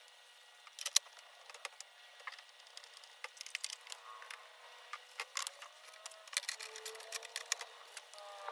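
Sped-up handling noise from the dismantling of a Pfaff Performance Icon computerized sewing machine: a quick, irregular run of plastic and metal clicks and knocks as its covers and parts are handled, the loudest a sharp click about a second in. A few short, high warbling sounds come in near the end.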